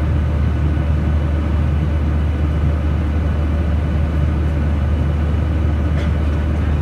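Jet airliner cabin noise at cruise: the steady, loud low drone of the engines and rushing air, heard inside the cabin from a window seat.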